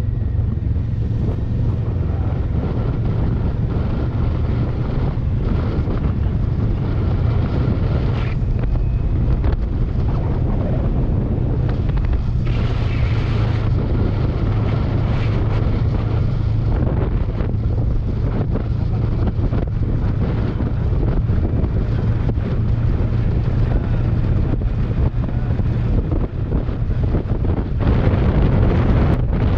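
Wind rushing and buffeting over the microphone on a moving motorcycle, over the steady hum of a Kawasaki Versys 650's parallel-twin engine at cruising speed. It grows a little louder near the end.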